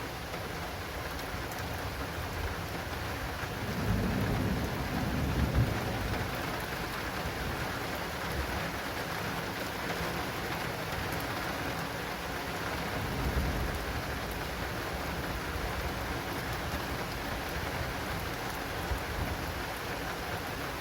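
Steady heavy rain falling on an acrylic rain canopy during a thunderstorm. A low roll of thunder comes about four seconds in, and a fainter rumble follows a little after halfway.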